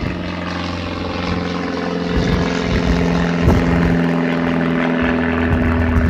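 Steady engine drone with several held low tones, unbroken throughout.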